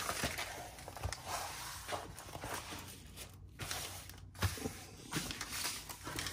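Folded paper sheets rustling as they are handled and laid down, with a few soft knocks on the table.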